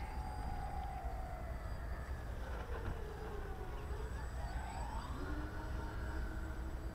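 Motors of a radio-controlled scale model Short S.23 'C-Class' Empire flying boat making a low pass and touch-and-go on the water. Their whine falls in pitch over the first few seconds, rises again around the middle and then holds steady. A low rumble of wind on the microphone runs underneath.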